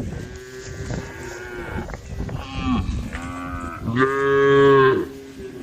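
Several cows mooing, their calls overlapping one after another. The loudest is a long moo about four seconds in.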